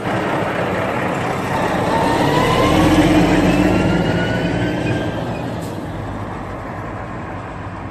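Water spraying on a muddy toy tanker truck as it is washed: a steady rushing noise that swells about three seconds in and then slowly fades, with faint rising tones in it.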